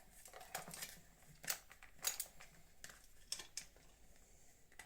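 Faint, irregular clicks and light knocks of motorcycle headlight parts being handled and fitted together by hand, about seven sharp ticks in all.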